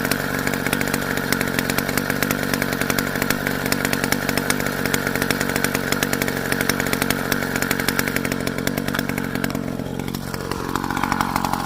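Small two-stroke kit engine of a motorized bicycle running steadily with a buzzy, chainsaw-like note. About ten seconds in, the note dips and changes.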